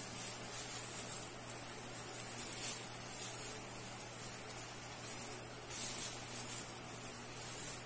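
Plastic tinsel garland on a wire wreath ring rustling and crinkling in uneven swells as it is turned and fluffed by hand, over a low steady hum.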